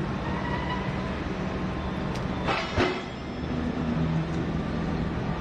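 Heavy mining machinery running at the loading face, the BelAZ 75710 haul truck and the electric rope shovel beside it, as a steady low drone. A short clatter ending in a knock comes about two and a half seconds in.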